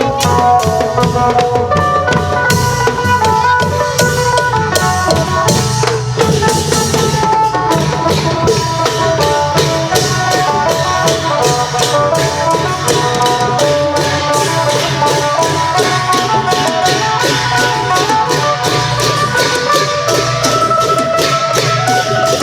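Isan klong yao long-drum ensemble playing a fast, dense rhythm under a plucked phin lute melody.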